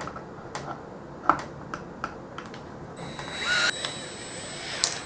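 DeWalt cordless drill being handled: a few scattered clicks and taps, then about three seconds in a short spin of the motor with a steady high whine, and a quick run of ratcheting clicks near the end as the keyless chuck is held and tightened on a bit.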